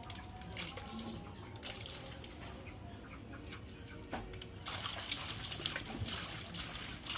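A small child splashing her hands in shallow water in an inflatable paddling pool: gentle water movement at first, then a run of quick splashes and slaps from a little past the middle.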